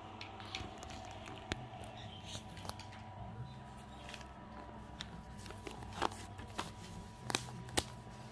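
Faint paper handling: a printed instruction booklet being pressed flat and shifted on a carpet, with scattered small crinkles and a few sharp clicks, the loudest near the end, over a low steady hum.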